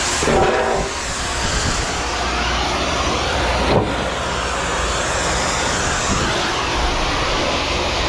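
Steady, loud rushing machine noise with a low rumble underneath, a brief tone about half a second in, and a single sharp click midway.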